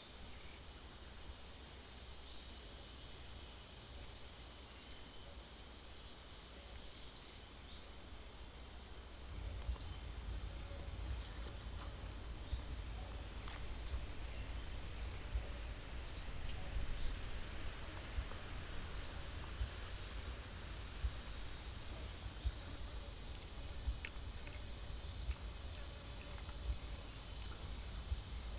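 Forest ambience: short high chirps repeating every second or two, probably a bird, over a faint steady insect whine. A low rumble comes up about nine seconds in.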